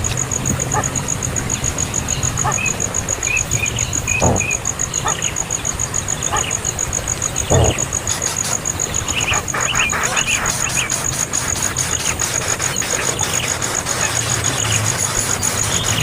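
A steady, high-pitched insect trill with rapid even pulses, with short bird chirps here and there. There are two low knocks, about four and seven and a half seconds in.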